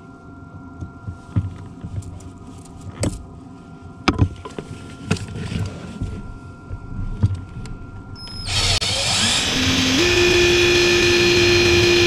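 Scattered clicks and knocks of a drill being handled and positioned. About eight and a half seconds in, a cordless right-angle drill starts up, rises in pitch and runs steadily, drilling a hole through the brake pedal.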